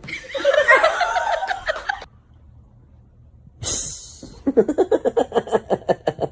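A person laughing in quick, even bursts, about four or five a second, from about halfway through. Before that there is a wavering, pitched voice-like sound for a couple of seconds and a short hiss.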